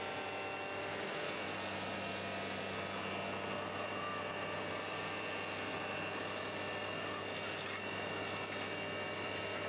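Hydrovac excavator truck running at a steady pitch and level: its vacuum system and engine drone with several held tones while the suction hose pulls loosened soil and water out of the excavation.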